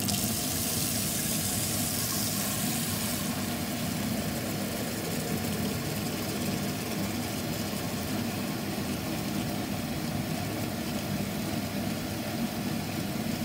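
Tap water pouring in a steady stream into a stainless steel stockpot. It begins suddenly, splashes brightest for the first few seconds while the bottom is barely covered, then settles into a duller steady rush as the pot fills.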